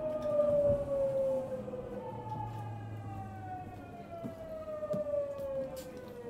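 Tokyu 9000 series electric train's GTO-VVVF inverter and traction motors whining as the train slows. The pitch slides steadily down, jumps back up about two seconds in and slides down again, over a low running rumble with the odd click of wheels over rail joints.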